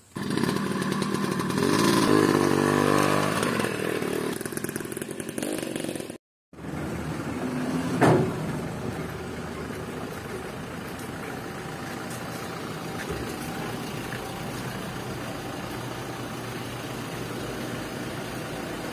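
Motor vehicle engine running: louder with a shifting pitch for about the first six seconds, then after a brief gap a steady idle, with one short sharp peak about eight seconds in.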